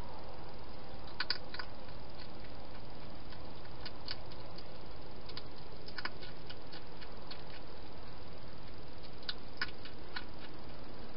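A hedgehog eating at a bowl inside a plastic feeding box: irregular sharp clicks and crunches in small clusters, over a steady hiss.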